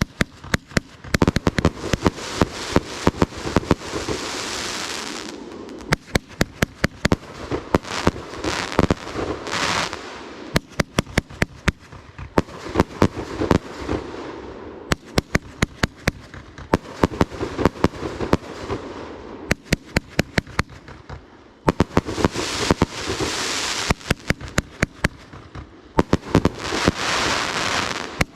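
Fireworks going off: many sharp bangs, often in quick runs, over crackling hiss that swells and fades several times.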